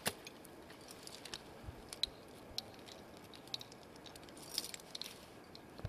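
Faint, scattered clicks, clinks and scrapes of an ice climber's crampons, ice axes and racked metal gear on snowy ice, with a short busier patch of clinking about four and a half seconds in.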